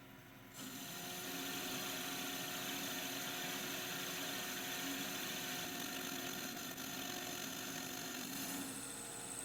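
A workshop machine tool starts about half a second in and runs steadily, a motor hum with several steady tones over a hiss. A thin high whine joins near the end.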